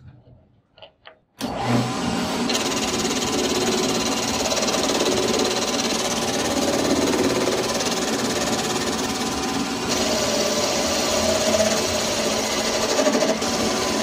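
Metal lathe running and cutting: the tool turns down the threaded end of a bolt, a steady loud machining noise that comes in suddenly about a second and a half in, after a few faint handling clicks.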